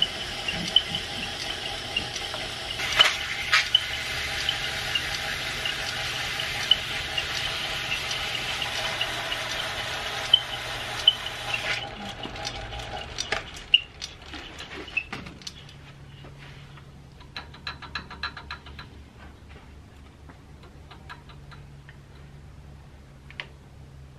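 Metal lathe spinning a repulsion-induction motor rotor while a wire brush scrubs its blackened commutator: a steady hiss with a whine and light regular ticking. About twelve seconds in the lathe stops and winds down, leaving scattered light handling clicks.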